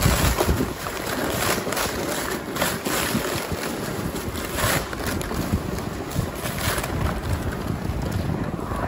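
A sled sliding fast down a slope of thin snow over grass stubble, scraping and bumping across the ground, with wind buffeting the microphone.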